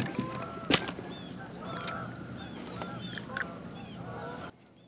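Birds calling in the background, many short curved calls, with one sharp knock about a second in. The sound cuts off suddenly near the end.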